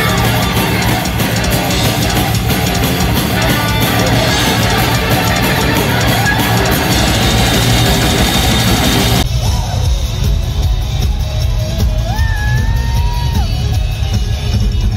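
Live heavy metal band playing at concert volume, recorded from the audience with crowd yelling. About nine seconds in it cuts to a different recording of the music, where a held, bending note stands out near the end.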